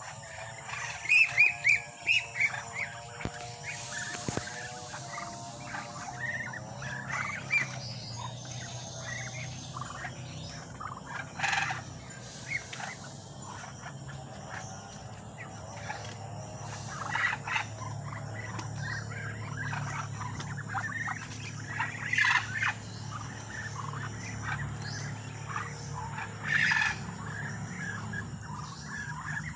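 Birds chirping and calling over a steady low hum, with a few short crackles now and then.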